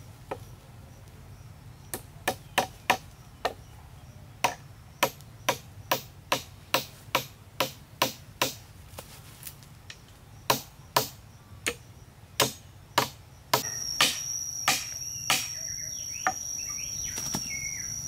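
Hatchet chopping into a wooden pole, a run of sharp strokes about two to three a second that starts about two seconds in and stops a little before the end. About three-quarters of the way through, an insect's high, steady buzz starts suddenly and carries on.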